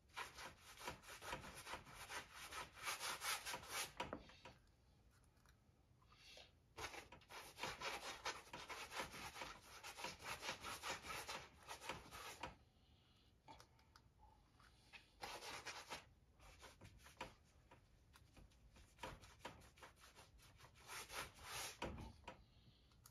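Gloved hand rubbing acrylic paint across a stretched canvas: faint swishing strokes in several spells of a few seconds each, with short pauses between.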